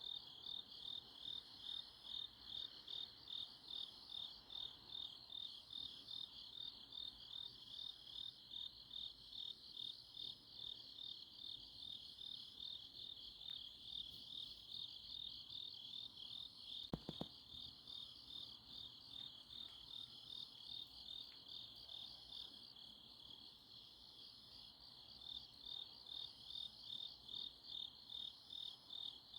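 Grass insects chirping in a steady night chorus, the main song a fast pulsed trill swelling about twice a second, with a fainter, higher chirp repeating every couple of seconds. The chorus thins for a few seconds about three-quarters of the way through, and there is one brief soft knock a little past the middle.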